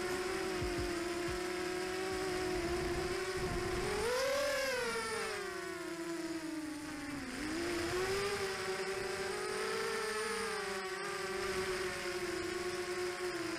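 FPV racing quadcopter's electric motors and propellers whining in flight, heard from its onboard camera. The pitch climbs to a peak about four seconds in, drops low a few seconds later, then rises and holds fairly steady as the throttle changes.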